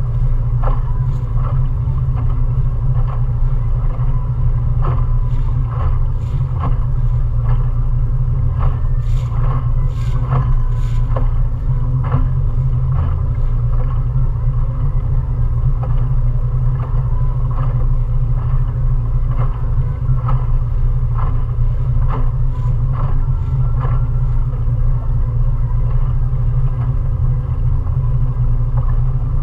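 20 hp Mariner outboard motor running steadily at cruising speed, heard from aboard the small cruiser it drives: a constant low drone with faint light ticks coming through it.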